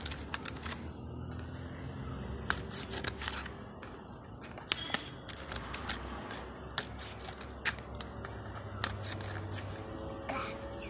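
Scissors snipping slits into the rim of a paper cup: a string of sharp, irregular snips and clicks, with the crackle of the cup being handled.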